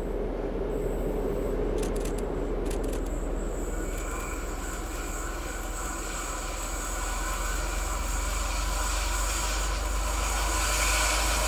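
PKP SU45 diesel locomotive running with a steady low drone. Its higher engine tones come in about four seconds in, and it grows a little louder toward the end as it draws closer.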